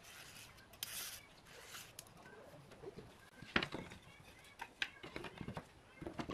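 A short scratching as a pencil marks a pine board along a steel rule. Then wooden strips are knocked and clattered onto a wooden workbench as they are stacked, with three sharper knocks.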